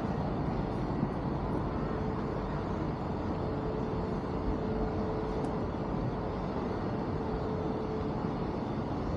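Steady low rumble of city background noise, with a steady mid-pitched hum that fades out near the end.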